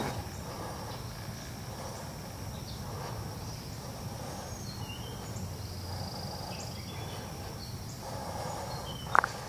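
Lakeside woodland ambience: a steady high-pitched insect drone with a few short bird chirps over a low background rumble, and a single sharp click about nine seconds in.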